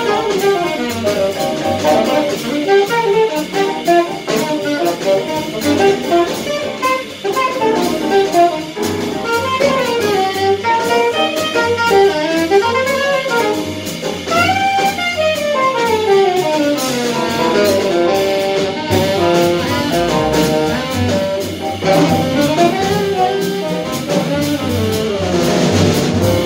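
Live jazz: a saxophone plays fast runs that climb and fall, over double bass and drum kit.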